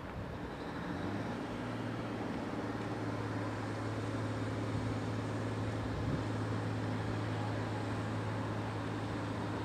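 Locomotive approaching along the station track, a steady low mechanical hum that sets in about a second in and holds.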